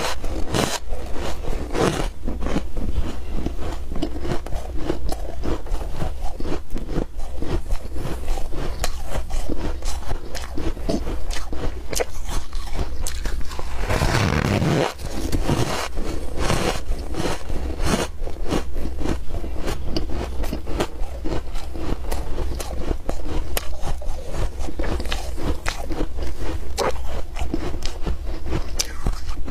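Close-up crunching of ice being bitten and chewed, a dense run of squeaky, crunchy cracks, with a brief louder rush of noise about halfway through.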